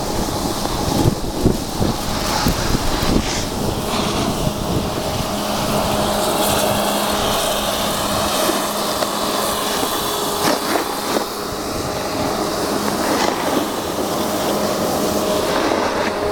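Snowboard sliding and scraping over hard-packed groomed snow in a steady rough rumble, with wind buffeting the microphone.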